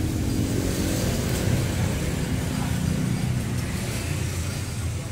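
A motor vehicle engine running steadily nearby, a continuous low rumble.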